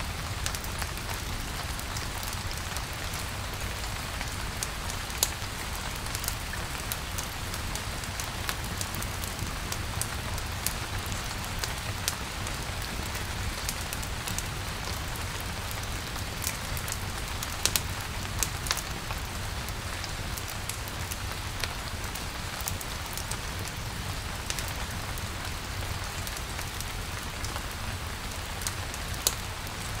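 Steady rain falling, with scattered sharp ticks throughout and a low steady rumble underneath.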